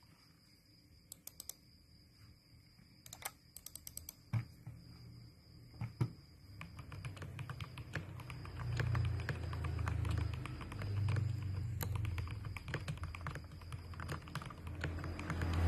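Mechanical keyboard fitted with Jwick Black switches being typed on: a few scattered keystrokes at first, then steady, fast typing from about six seconds in, with a deeper thud to the keystrokes as it goes on.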